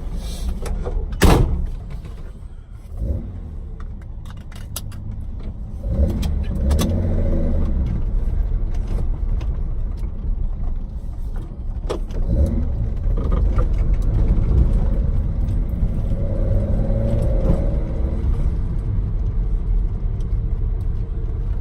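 A single loud slam about a second in, then a Datsun 260Z's straight-six on triple Mikuni sidedraft carburettors pulling away and revving up through the gears, pitch rising in surges.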